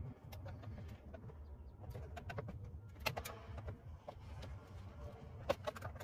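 Flat screwdriver prying at the plastic armrest of a Toyota Corolla door panel: scattered light clicks and scrapes of plastic, over a low steady rumble, with a bird calling in the background.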